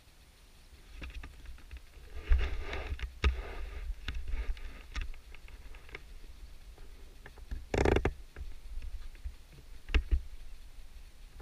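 Handling noise from an action camera moved about by hand: irregular rustles, scrapes and knocks, the loudest a short scraping burst about eight seconds in, over a steady low rumble of wind on the microphone.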